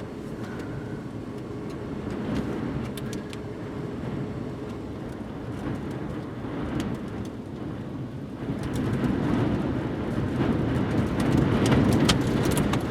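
Wind and vehicle noise around a storm-chase car, with no clear pitch. It strengthens about two-thirds of the way through as the rear-flank downdraft wind picks up, with scattered sharp ticks over it.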